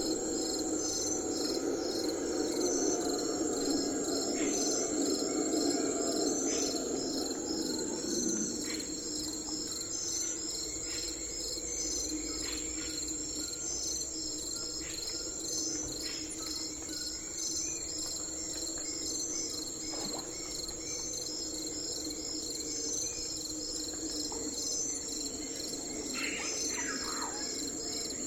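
Crickets chirping in a steady, pulsing chorus, with scattered short bird calls and one falling call near the end. A lower, steady hum underneath fades out about eight seconds in.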